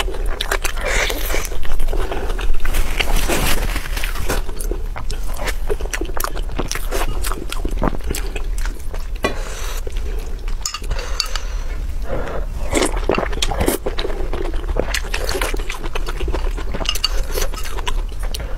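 Close-up eating sounds: a person chewing and biting food, with many short clinks of chopsticks against a glass bowl.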